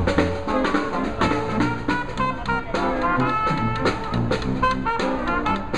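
Brass band playing New Orleans-style jazz: horns over a sousaphone bass line and a marching snare drum keeping a steady beat.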